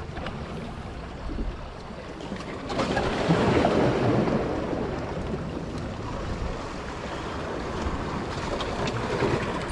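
Sea waves washing in along the shore, with wind on the microphone; one wave swells up about three seconds in and slowly dies away.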